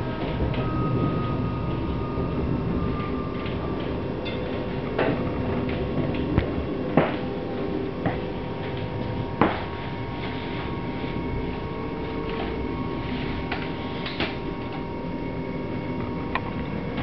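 Regional train heard from inside a carriage as it slows into a station. A steady running rumble carries a whine that falls slowly in pitch over the first few seconds. Irregular sharp clunks and clicks come from the wheels crossing rail joints and points.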